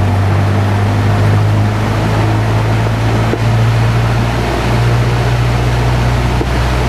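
Cessna 172's piston engine and propeller running steadily at run-up power, about 1700 RPM for the pre-flight performance check, heard from inside the cabin as a loud, even drone.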